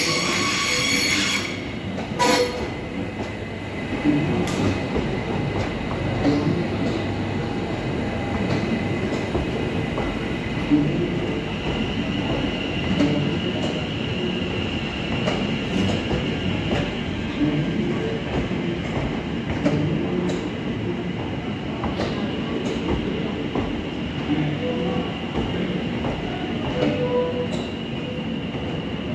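Greater Anglia electric multiple unit running slowly through the platform under the station roof, its wheels clicking over rail joints. A steady high-pitched squeal from the wheels sets in about ten seconds in.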